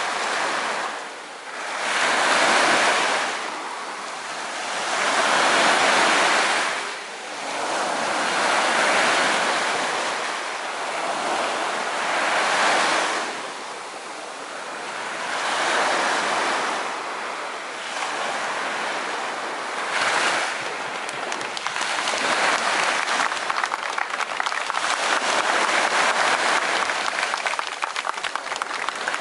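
Sea waves breaking and washing ashore in slow surges about every three to four seconds. From about twenty seconds in, the surges give way to a steady crackling patter.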